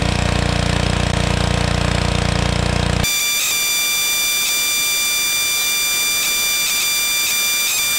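Pressure washer running and spraying for about three seconds, then cut off abruptly. Background music with a steady high electronic tone follows.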